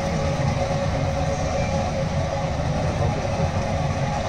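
Open electric sightseeing car driving along, a steady rumble of its running with a steady whine over it.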